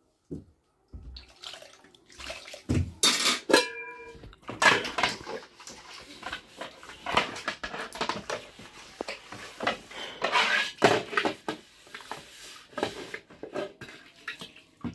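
Irregular household clatter and knocks mixed with water noise, with a short ringing tone about three and a half seconds in.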